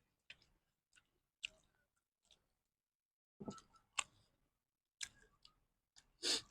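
Scattered clicks and smacks of people eating, with a louder noise near the end.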